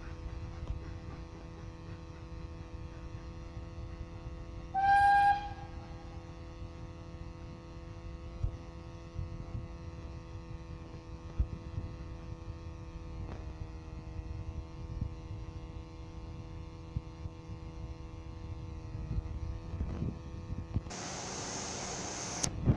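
Polish Ol49 steam locomotive's whistle: one short, single-pitched blast about five seconds in, over a steady hum and low rumble. Near the end, a loud hiss lasts about a second and a half.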